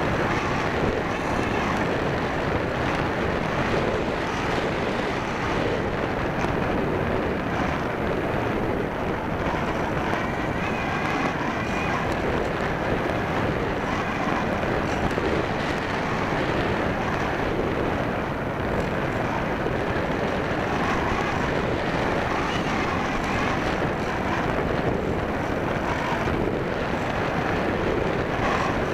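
Steady rush of air over an electric model glider and its onboard microphone in flight, with a faint higher tone for a few seconds in the middle.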